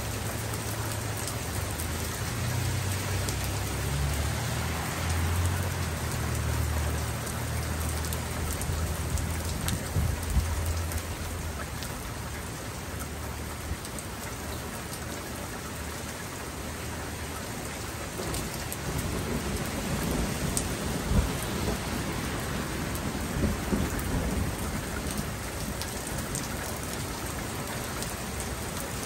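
Steady rain falling, with a long low roll of thunder through the first ten seconds or so and a fainter rumble later on. A few louder drop taps stand out, the sharpest about two-thirds of the way through.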